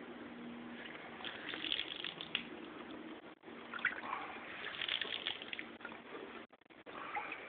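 Water splashing and trickling over a headlight lens as it is rinsed, louder in two stretches, about a second in and about four seconds in.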